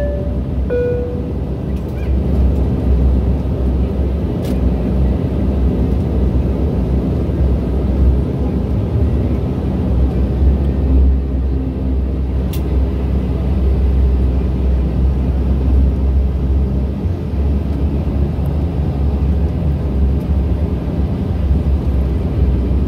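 Steady cabin drone of a Bombardier Q400's Pratt & Whitney PW150A turboprops and propellers while taxiing, mostly a deep rumble. A short two-note chime sounds right at the start.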